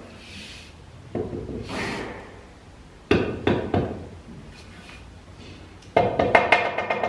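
A few scattered knocks and short scraping noises, then percussive music with a quick click-like beat comes in about six seconds in.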